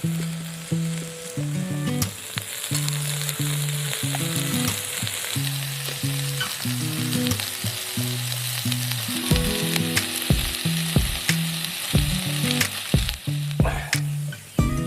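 Food sizzling and frying on a hot griddle set over a burning log, with scattered sharp pops, over background music with a low melodic line.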